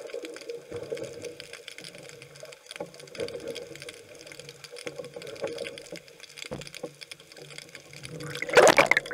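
Water sloshing and splashing, with scattered clicks, and a louder rush of water near the end.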